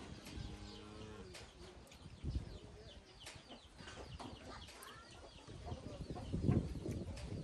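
Strong wind rumbling on the microphone, with small birds chirping and a short low pitched call about half a second in.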